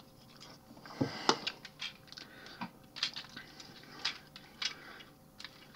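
Scattered small clicks and taps of hard plastic toy parts being handled and pulled off a Transformers figure, about a dozen at irregular moments.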